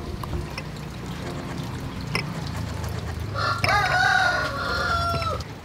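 A rooster crows once, starting about three and a half seconds in: a single drawn-out call of about two seconds that drops in pitch at the end. Before it come a few light taps as peeled rambutans are dropped into a glass tumbler.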